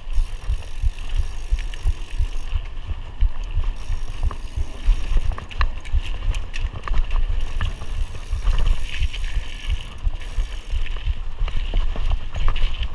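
Mountain bike being ridden along a cross-country trail: a constant low rumble and buffeting, with frequent small clicks and rattles from the tyres, chain and bike over the rough ground.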